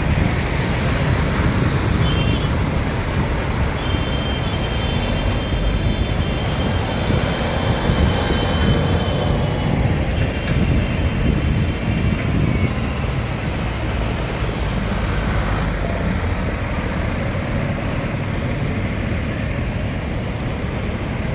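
Farm tractors' diesel engines and passing cars moving slowly in a convoy close by: a steady low rumble of engines and tyres.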